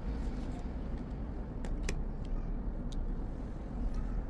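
Steady low rumble with a few light clicks in the middle, as a sharp tool pries the back glass off a Samsung Galaxy S10e.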